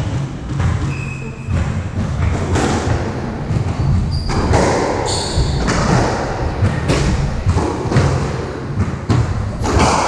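Squash rally: a string of sharp hits as rackets strike the ball and it smacks off the court walls, with short squeaks of shoes on the wooden floor.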